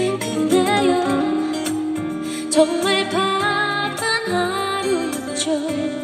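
A woman singing into a microphone with acoustic guitar accompaniment, performed live.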